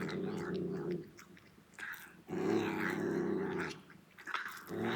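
A cat growling over its food in long, low, drawn-out growls: one tails off about a second in, a second lasts about a second and a half, and a third starts near the end.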